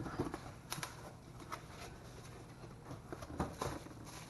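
Box and packaging being opened and handled by hand: scattered light clicks, taps and rustles at irregular times.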